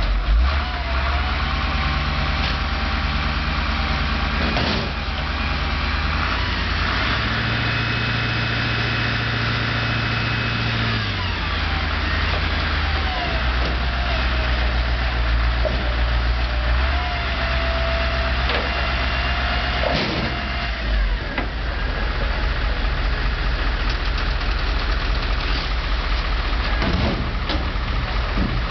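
Front-loading garbage truck's diesel engine running, revving up twice to drive the hydraulic forks as they lift a bin over the cab and lower it. A wavering whine rises and falls over the engine. A single metal clank comes about twenty seconds in.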